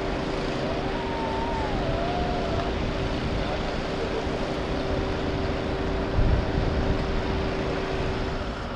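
Steady engine noise of emergency vehicles with a constant hum that stops near the end. A siren wails faintly in the first few seconds, and there is a low thump a little after six seconds.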